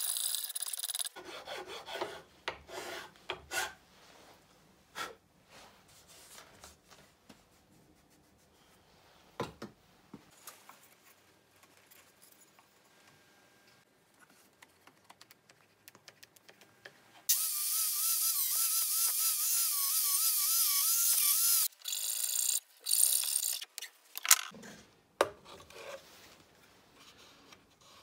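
Flat metal file rasping against a wooden cutting-board handle in short hand strokes, at the start and again for a few seconds after the middle. Between them comes a loud, steady hiss with a wavering whistle in it, lasting about four seconds and cutting off sharply.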